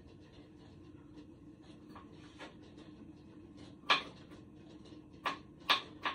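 Kitchen knife chopping a small pickle on a cutting board: a few faint taps, a sharp knock about four seconds in, then quick knocks about three a second near the end.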